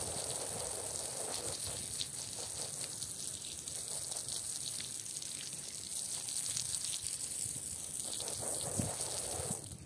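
Water from a hose spraying onto a soapy, foam-covered rug lying on a stone floor, rinsing it: a steady rush and splatter of water on wet pile and stone.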